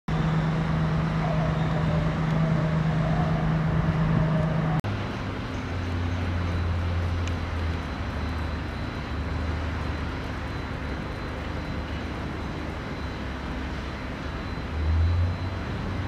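Steady road traffic noise with the low hum of passing vehicle engines. The sound drops out for an instant a little under five seconds in, and a vehicle swells louder near the end.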